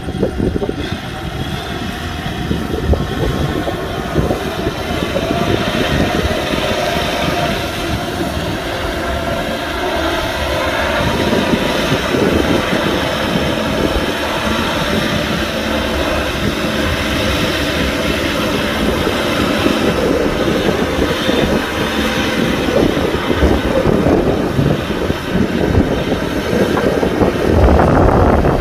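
Kubota tractor's diesel engine running steadily under load while plowing, with its clatter held at an even level throughout.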